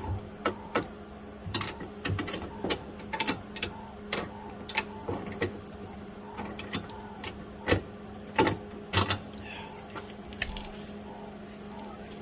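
Irregular light clicks and taps of a hand tool and socket against metal as a fastener in a truck door is fiddled with and fails to start threading, over a steady low hum.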